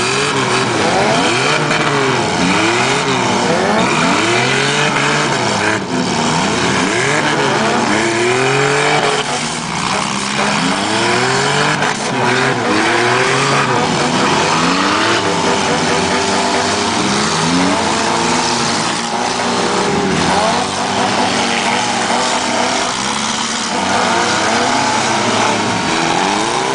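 Several four-cylinder demolition-derby car engines revving up and down over and over as the cars push and spin their wheels against each other, with a few knocks of cars hitting.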